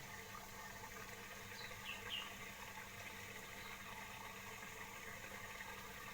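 Faint outdoor background noise with a steady low hum, and a few short high chirps about two seconds in.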